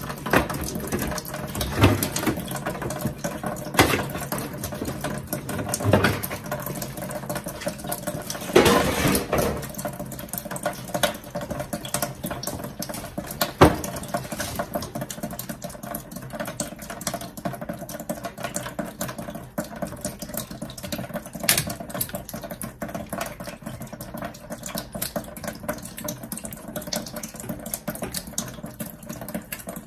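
Residual water running steadily out of the disconnected water-softener supply line as the house pipes drain after the main is shut off. A few knocks from pliers working on the fittings.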